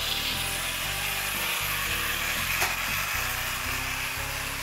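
Faller HiT Train toy locomotive's small electric motor and plastic gears whirring steadily as it runs along plastic track, with one sharp click about two and a half seconds in. Background music with a stepping bass line plays underneath.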